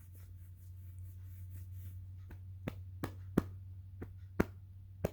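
A series of about seven sharp, short clicks or taps, irregularly spaced about half a second apart, starting about two seconds in, over a steady low hum.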